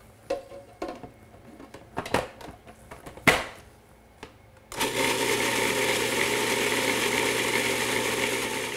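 A few plastic clicks and knocks as a food processor's lid and feed-tube pusher are fitted. About five seconds in, the food processor's motor starts and runs at a steady pitch, puréeing a wet coriander-mint chutney.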